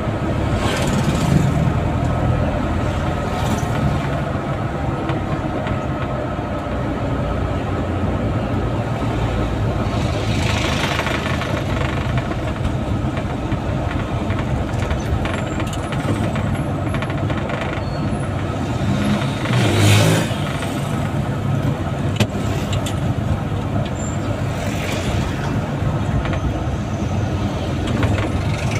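Engine and road noise heard from inside the cab of a small vehicle driving through traffic, with other vehicles passing close by in brief rushes; the loudest rush comes about twenty seconds in.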